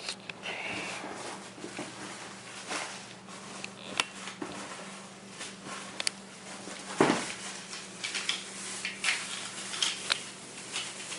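Scattered light clicks and knocks from the parts of an opened hoverboard being handled, with a sharper knock about seven seconds in, over a faint steady hum.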